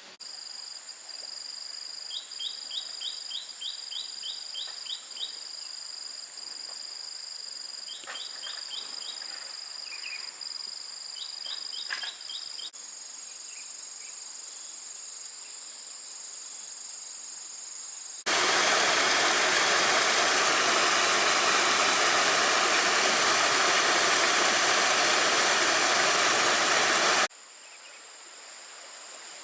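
Insects shrilling steadily at two high pitches, with a few short runs of quick chirps in the first half. Partway through, a loud, even rushing noise takes over for about nine seconds and then cuts off suddenly, leaving the insects again.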